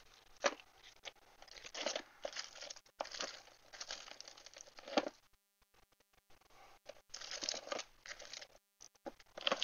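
Crinkling and rustling of stamp packages being handled in irregular bursts as someone rummages through stored stamps, with a pause of a second or so just past the middle.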